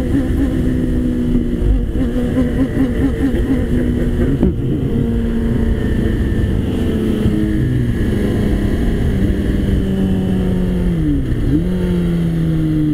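Sportbike's inline-four engine running at a steady cruise, heard from the rider's seat over heavy wind rush. The engine note drops in steps over the second half, with a quick dip and recovery near the end, as the bike slows.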